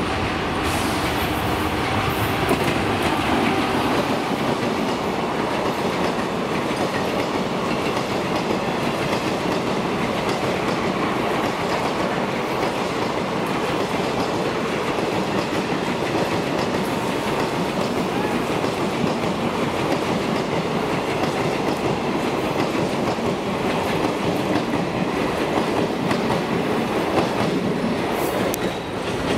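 18-coach passenger train hauled by a WAP-5 electric locomotive passing close by. The coaches' wheels run steadily and loudly over the rails.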